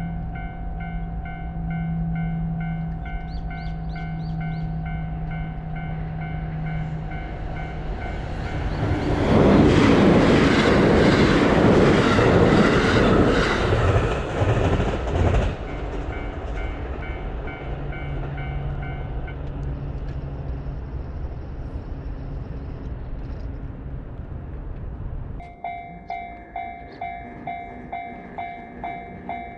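Japanese level-crossing warning bell ringing its repeating kan-kan while a train passes, loud for about seven seconds in the middle. The bell stops soon after the train has gone, and near the end a different crossing bell starts ringing.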